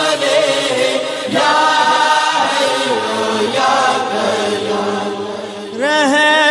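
Devotional Islamic chanting (durood recitation) sung in long, drawn-out held notes, with a new phrase beginning near the end on a wavering, ornamented note.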